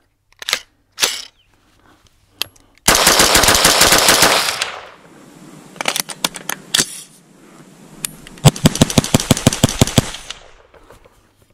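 Guncraft AR-15 in .22 Magnum (.22 WMR) firing semi-automatic in two quick strings, the first about three seconds in and the second about eight and a half seconds in, with a few single clicks between. The rifle cycles every round without a jam.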